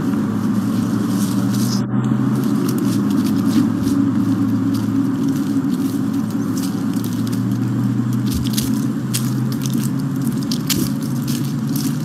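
Footsteps crunching on a gravel path strewn with dry fallen leaves, in an irregular stream of crackles, under a steady low hum.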